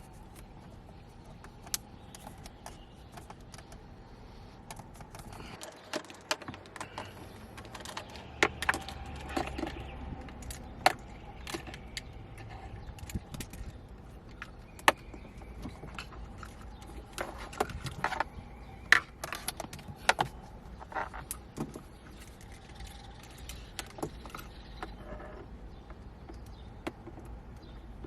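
Scattered sharp clicks, taps and rustles of plastic being handled, as a clear LED light strip is pressed into the trim gaps of a Tesla Model 3's center console. The clicks come thickest in the middle stretch.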